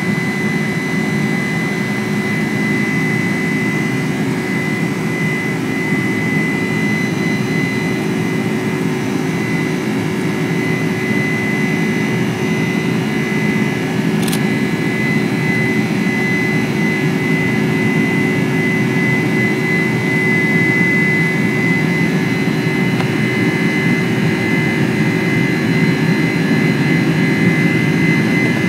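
Cabin noise of a Boeing 747-400ER climbing after takeoff: its General Electric turbofan engines running at climb power, a steady low rumble with a high fan whine, heard from a window seat over the wing. One brief click about halfway through, and the noise grows a little louder near the end.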